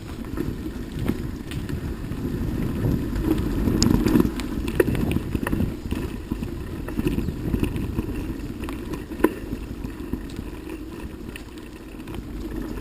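Bicycle riding over a rough dirt path: a low rumbling of tyres and wind buffeting the microphone, with scattered clicks and rattles from the bike.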